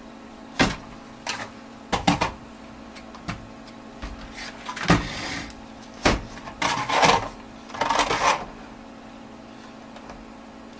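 Sony/Tektronix 305 portable oscilloscope being handled and set down on a wooden workbench: a string of irregular knocks, clunks and short scrapes, the longest scraping around five and seven to eight seconds in, over a steady low hum.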